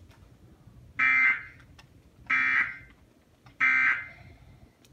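Emergency Alert System end-of-message signal played through a TV: three short, harsh digital data bursts, each about half a second long and a little over a second apart, marking the end of the alert broadcast.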